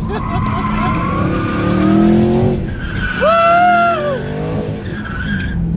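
Dodge Hellcat Redeye's supercharged HEMI V8 revving hard as the car slides sideways, heard from inside the car. The engine pitch climbs, then the tyres let out a wavering squeal about three seconds in.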